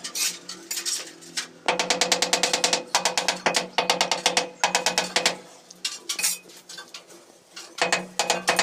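Background music: fast runs of rattling, clicking percussion over a steady held low note, dropping away for a couple of seconds past the middle.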